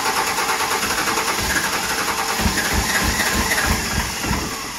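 24-valve Cummins 5.9 L inline-six diesel being cranked over by its starter without catching, on its first start after a fire-ring head gasket job. A row of low thumps comes through in the second half, and the cranking trails off near the end.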